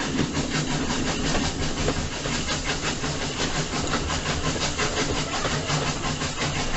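Loud, steady roar of tornado wind with a rapid, even pulsing and a low hum underneath, and no train-like whistle.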